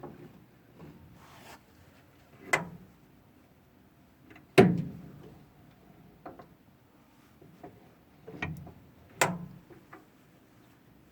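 Parts of an old Frista washing machine being handled: about four separate knocks and clunks with fainter ticks between them, the loudest about four and a half seconds in.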